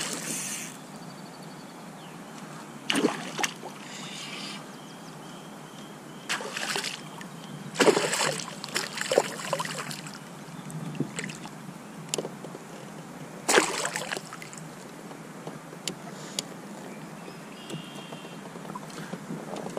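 A hooked fish thrashing and splashing at the surface beside a kayak while it is fought on the line, in several separate bursts of splashing about three to five seconds apart, with water lapping in between.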